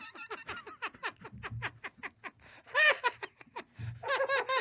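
Several men laughing hard together in rapid, breathy bursts, with a loud high-pitched whoop of laughter about three seconds in and another near the end.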